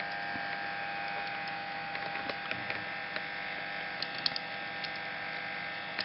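Light clicks and taps of hard plastic toy parts being twisted and fitted together by hand, a few at a time, over a steady background electrical hum with a high whine.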